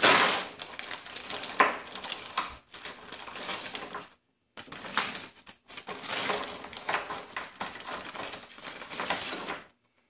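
Small metal hardware being handled, clinking and rattling: a grand piano's lid hinges and hinge pin, with brief gaps.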